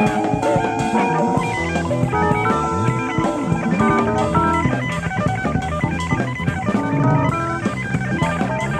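A live jazz-fusion band playing: quick runs of single notes on electric guitar over a walking bass line and a drum kit. It is a 1970s FM radio broadcast recorded on cassette tape, so the sound is dull, with no top end above about 10 kHz.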